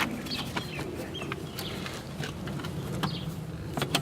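Chickens clucking in short scattered calls, with a few sharp clicks and taps of parts being handled.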